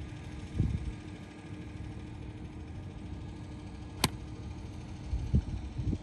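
Golf club striking the ball on a short iron pitch shot from the fairway: one sharp click about four seconds in. A few low thumps come before and after it.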